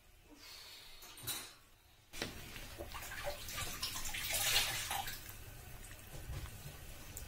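Pickling marinade boiling in a pot of whole red peppers, bubbling steadily, with a spatula stirring and turning the peppers in the liquid. The bubbling starts suddenly about two seconds in and is loudest around four and a half seconds.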